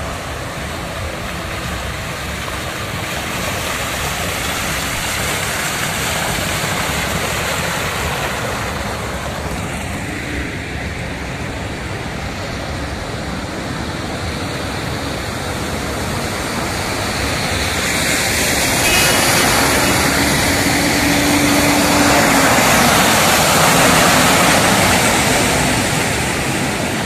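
Vehicles driving through a flooded street: engines running under a steady rush and wash of water thrown up by the tyres, growing louder about two-thirds of the way through.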